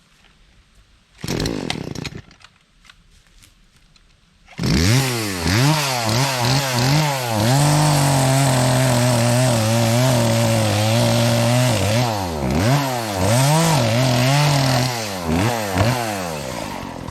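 Chainsaw running: a short loud burst about a second in, then the saw starts up at about four and a half seconds and is revved up and down. It is held steady at full throttle for several seconds, as in cutting, then blipped repeatedly and eased off near the end.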